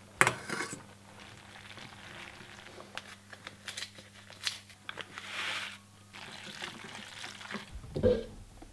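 Hands working over a steel saucepan of macaroni: a sharp knock at the start, then small clicks and crinkles of a paper cheese-powder sachet being handled and torn, and a short hiss about five seconds in as the powder pours into the pot. A faint steady hum runs underneath.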